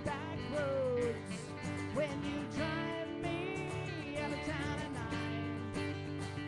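A live band playing a song, with guitar and sustained, bending melody lines over a steady low accompaniment.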